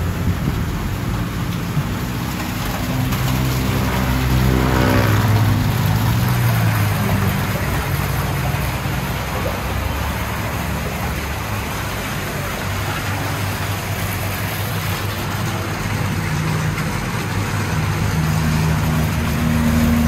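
Road traffic: motor vehicles running and going by, with a steady hiss under it. One engine grows louder, its pitch shifting, about four to five seconds in.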